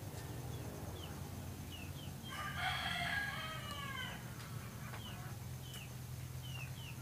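A rooster crows once, starting about two and a half seconds in and lasting about two seconds. Short high chirps come before and after it, over a low steady hum.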